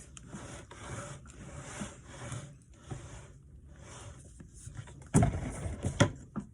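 Glue being stirred in a container: repeated scraping strokes roughly every half second to second, then two loud knocks about five and six seconds in.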